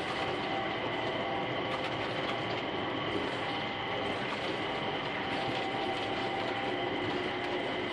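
Mitsubishi Crystal Mover automated people mover on rubber tyres running along its guideway, heard from inside the car: a steady running noise with a few steady high-pitched tones and occasional faint clicks.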